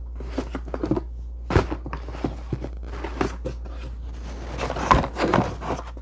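Rummaging and handling of boxed products and packaging: a quick string of knocks, clicks and rustles, busiest near the end, over a steady low hum.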